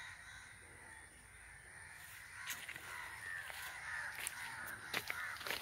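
Crows cawing, growing louder about two seconds in, with a few sharp clicks near the end.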